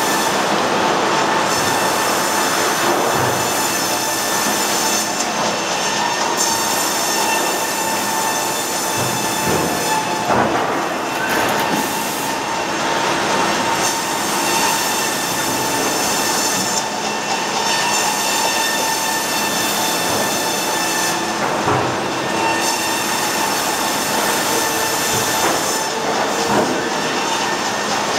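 A six-foot double-cut band headrig sawing a log as the carriage carries it through the blade. A steady high whine runs over a continuous mechanical rattle and rumble. The sound shifts every few seconds as each pass changes.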